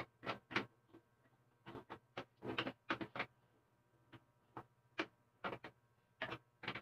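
Irregular light clicks and scrapes of hands and a small screwdriver working on a plastic wall clock case, over a faint steady hum.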